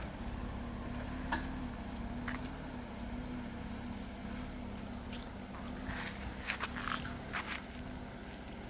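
Off-road truck engine running steadily at low speed, with several sharp clicks and knocks from the truck working over the trail, most of them about six to seven and a half seconds in.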